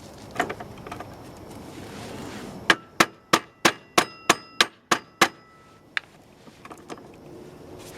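Axle bolt being hammered through a scooter's front fork and wheel hub: a quick run of about nine ringing metal strikes, roughly three a second, a few seconds in, after a couple of lighter knocks and some scraping.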